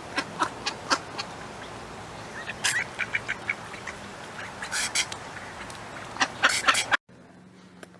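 An animal's short, sharp sneezes, coming in quick runs about 2.7 s, 5 s and 6.5 s in over a steady background hiss; the sound cuts off abruptly about 7 s in.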